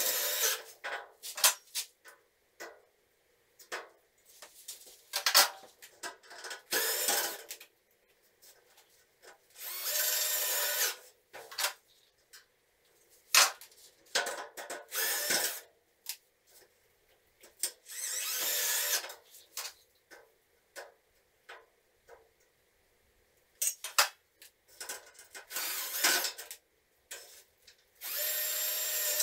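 Cordless drill running in repeated short bursts of about a second each, with sharp clicks and light knocks between them.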